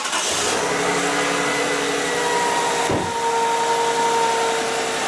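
Toyota Highlander's 3.5-litre V6 running at idle just after being started, a steady engine noise with a faint steady whine in it. A short knock sounds about three seconds in.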